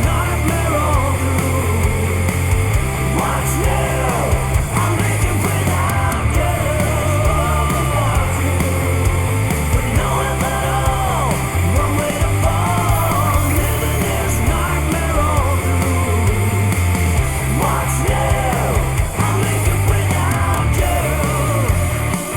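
Rock music with a strong, steady bass line, played back through Bowers & Wilkins PX7 wireless noise-cancelling headphones for a calibrated sound demo.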